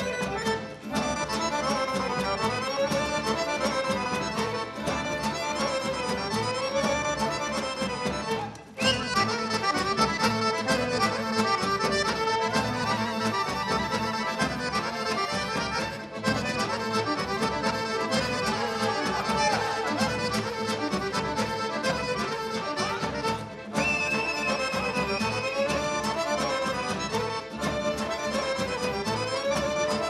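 Live folk band playing a fast dance tune led by accordion, with violin and double bass, the accordion repeating a short rising-and-falling phrase. The music breaks off for a moment three times.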